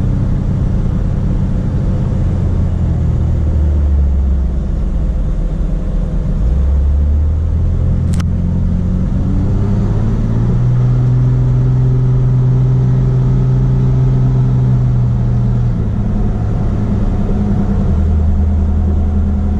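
Inside the cab of a 2007 Dodge Ram with the 5.9 Cummins turbo diesel on the move: mostly tire noise over a low engine drone that shifts in pitch a few times. With the factory air box fitted, the turbo whistle is faint at most. A single sharp click sounds about eight seconds in.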